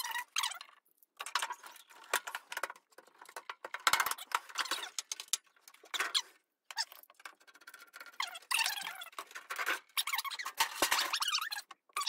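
Fast-forwarded work sounds from taking a microwave apart: high-pitched, squeaky, chattering clicks and scrapes of screwdriver and sheet-metal cover handling, chopped by several abrupt cuts.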